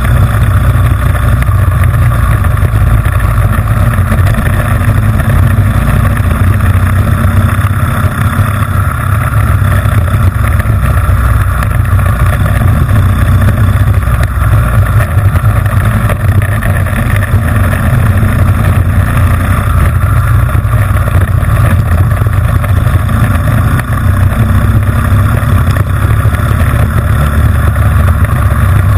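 Honda GX160 single-cylinder four-stroke engine of a racing kart running hard at speed, loud and close from on board the kart, with a steady, even drone that barely changes.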